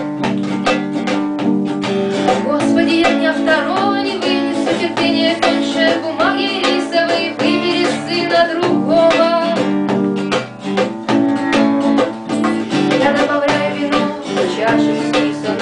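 Acoustic guitar strummed to a steady rhythm, with a hand drum tapped along and a woman's voice singing.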